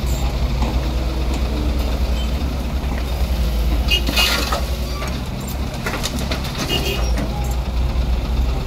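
Crawler excavator's diesel engine running steadily under load as it swings and dumps a bucket of soil into a dump truck bed; about four seconds in, a brief rush of dirt pouring and hitting the load.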